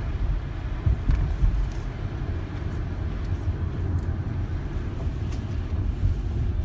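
Steady low rumble of a car driving on a wet road, tyre and engine noise heard from inside the cabin, with a few faint ticks.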